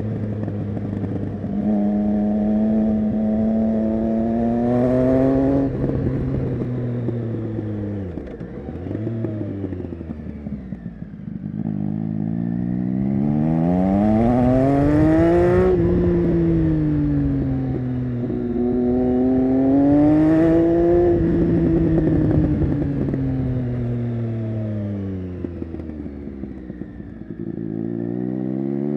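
Triumph Street Triple 675 inline three-cylinder through an SC-Project Conic slip-on exhaust. The revs climb and fall several times as the bike accelerates out of turns and slows into them. There is crackling and popping on the overrun each time it slows.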